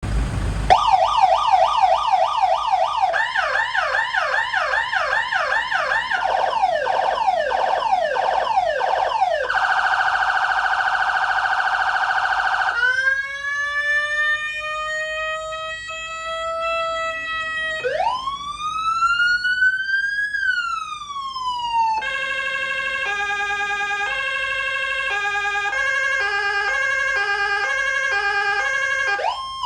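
Electronic emergency-vehicle siren stepping through its tone modes: a fast yelp of rapid repeated sweeps, then a steady tone for about three seconds, a slow rising wail, a single rise and fall, and near the end stepped two-tone and multi-tone alternating patterns.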